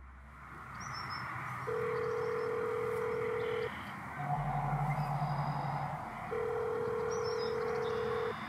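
Telephone ringback tone on the line, two steady rings of about two seconds each: the call is ringing unanswered. A low hum sounds between the rings, and a few faint bird chirps come in the background.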